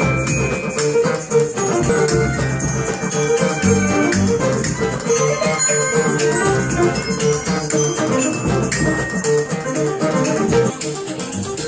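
Live acoustic music: a guitar plucks a melody over a steady shaker rhythm.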